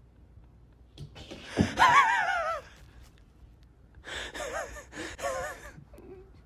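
Two breathy, high-pitched, wavering vocal cries, the first about a second in and the second about three seconds later.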